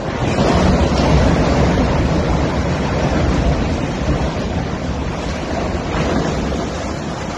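Steel lattice boom of a container gantry crane collapsing: a loud rumbling crash that swells just after the start and slowly dies away, with wind buffeting the microphone.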